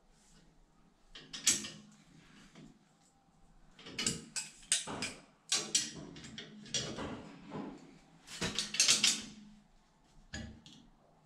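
Irregular metallic clinks and rattles of a stainless bolt, Nordlock washer and nut being handled and tightened on a bolted joint in a grounding flat bar, the loudest bunches about a second and a half in and again around eight to nine seconds.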